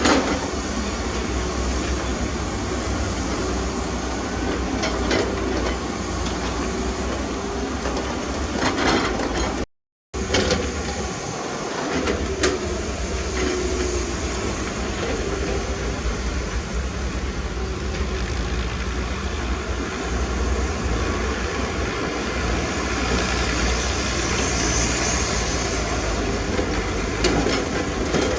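Heavy diesel earth-moving machinery running steadily with a low rumble and metallic clatter. The sound cuts out for a moment about ten seconds in.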